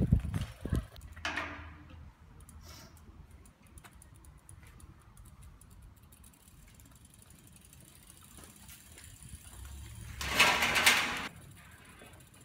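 Metal clicks and a creak from the lock and latch of a metal-barred gate being worked by hand, then faint mechanical clicking, and a loud noisy burst lasting about a second near the end.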